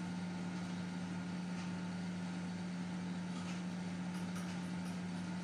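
Steady low machine hum, unchanging throughout, with a few faint light clicks.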